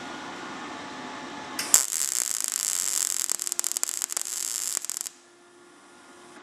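MIG welder arc crackling and spitting on thin sheet steel. It starts about a second and a half in and cuts off suddenly after about three and a half seconds. The voltage is still set too cold, hot enough only to begin making a weld.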